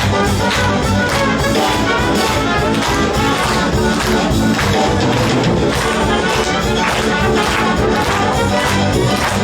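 Music led by brass instruments, with a steady beat.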